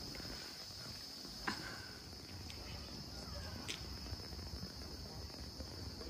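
Steady high insect chorus, one unbroken buzz, over a low rumble, with two sharp clicks: one about a second and a half in, one near four seconds.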